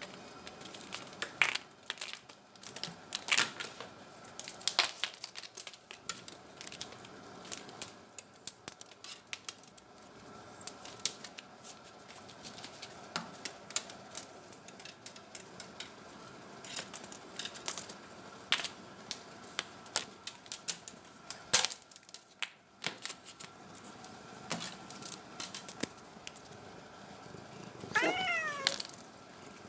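Irregular light clicks and taps throughout from cats at play, then a cat gives a few short meows near the end.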